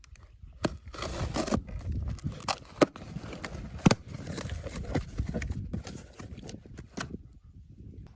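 Bike-rack parts and packaging being handled: plastic crinkling and scraping, with scattered sharp clicks and knocks, the two loudest about three and four seconds in.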